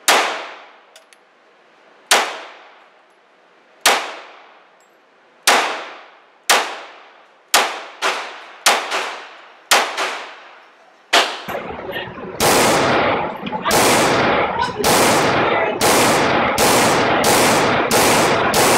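Semi-automatic pistol shots in an indoor shooting range, each ringing out in the range's echo. For about the first eleven seconds there are around ten single shots at uneven spacing, some a second or two apart and some in quick pairs. After that comes a faster, even string of roughly a dozen shots, about two a second, over a louder background.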